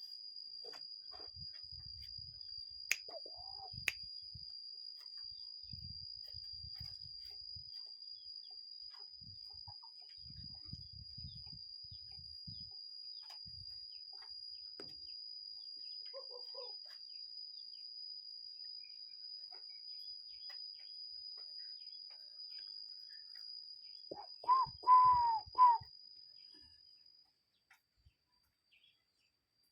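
Cuckoo calling, a short run of three or four strong, downward-bending notes near the end, over a steady high-pitched whine that stops shortly after. Faint rustling and a couple of small clicks come earlier.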